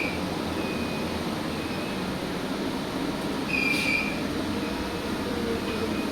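Fire alarm control panel beeping: short, high electronic beeps about half a second long, with one loud beep midway and fainter ones about once a second around it. A steady rushing noise runs underneath.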